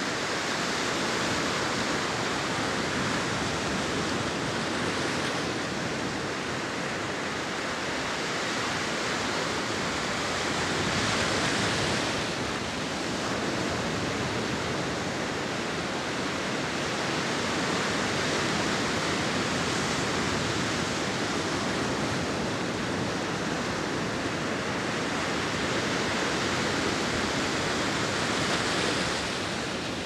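Large ocean waves crashing against the shore: a continuous rush of surf that slowly swells and eases. It grows loudest twice, about a third of the way in and again near the end, each time falling away quickly as the wave spends itself.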